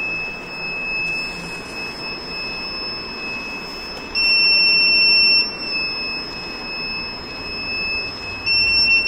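Buzzer module on a hobby obstacle-avoiding robot car sounding one continuous high-pitched tone, louder for about a second around four seconds in and again near the end. The tone means the car's IR sensor has detected an obstacle and the wheel motors have stopped.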